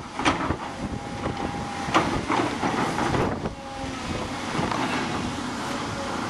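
Blustery wind buffeting the microphone, heard as an irregular crackling and rumbling, with the faint steady drone of the excavators working in the cutting underneath.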